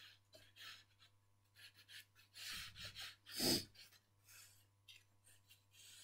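Chalk pastel scratching across paper in short, quick strokes, faint. About three and a half seconds in comes a louder, sharp breath.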